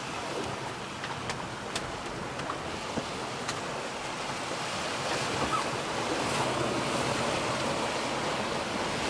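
Sea water rushing past a J30 sailboat under way offshore, with wind on the microphone and a few faint clicks early. The rush of water grows louder about five seconds in.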